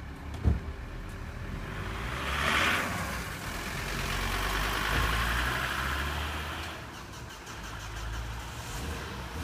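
A car passing on a wet road: tyre hiss swells from about two seconds in, stays up for a few seconds over a low rumble and fades away near the end. A short knock about half a second in.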